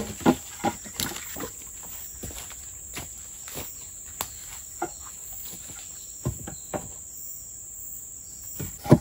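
A steady high-pitched chorus of forest insects, with scattered knocks and taps. The knocks come several times in the first second and a half, a few more through the middle, and loudest just before the end.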